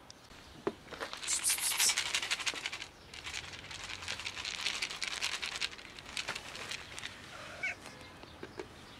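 Several seconds of dense crackling and rustling handling noise, then a short, faint meow from a cat near the end.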